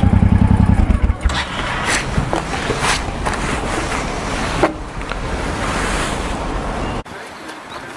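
Honda Shadow V-twin motorcycle engine idling with an even, lumpy pulse, then switched off about a second in. After that come rustling and a few sharp clicks as the rider handles his gear at the handlebars, until the sound drops abruptly to quiet outdoor ambience near the end.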